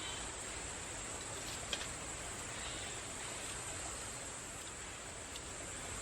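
Quiet outdoor background: a steady high hiss, with faint clicks about two seconds in and again near the end.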